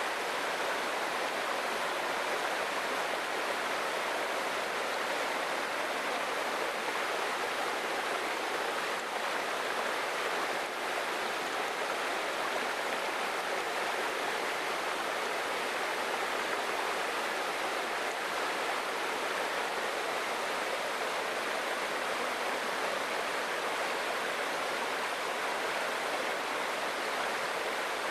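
Waterfall and stream water rushing steadily, an even hiss of falling water.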